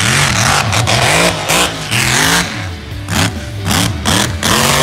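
Lifted mega truck's engine revving hard, its pitch rising and falling again and again as it is worked up and off the throttle.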